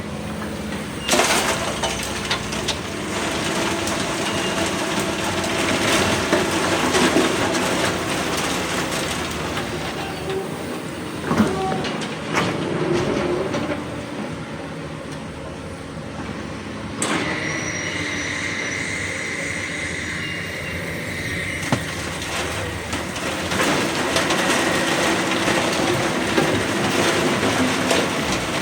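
Crawler excavators working rock: engine and hydraulics running under load, with sharp metallic knocks from the bucket and tracks, and a high steady squeal in the later part.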